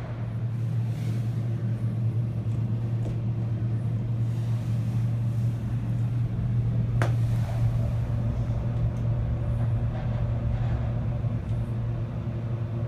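Elevator car riding up, a steady low hum inside the cab, with a single sharp click about halfway through.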